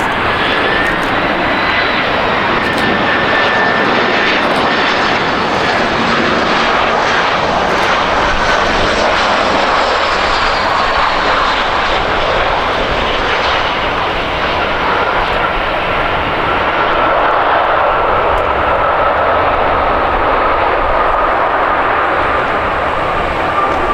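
Jet airliner's engines close by, a loud, steady rush of jet noise with a whine that slowly falls in pitch.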